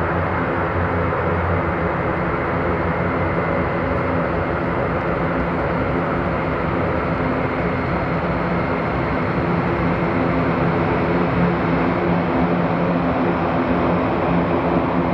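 Airbus A400M's four turboprop engines running: a steady drone with a propeller hum, getting slightly louder near the end.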